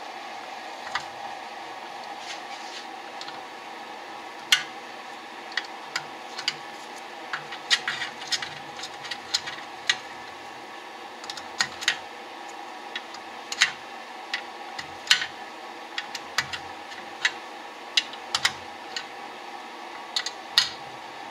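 Irregular sharp metal clicks and clinks as a wrench and hardware are worked on a carburetor and its metal air box, a few a second at times. Under them runs a steady background hum.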